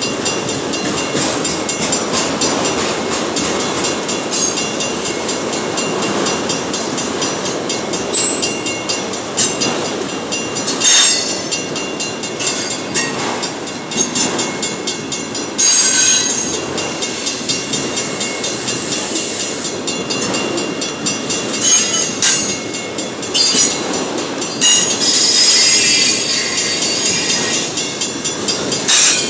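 Autorack freight cars rolling past close by: a steady rumble of steel wheels on rail with high-pitched wheel squeal. There are occasional clanks, and several louder squealing bursts through the middle and near the end.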